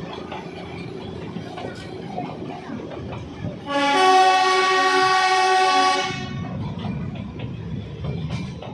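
Darjeeling Himalayan Railway toy train running with a steady rumble and rattle. A little under halfway in, its horn sounds once, a single steady note held for about two seconds.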